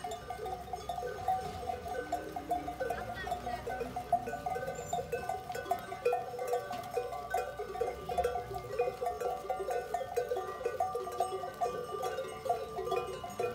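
Many bells on a passing flock of sheep clanking and jingling together without pause, a dense, uneven ringing of overlapping clinks.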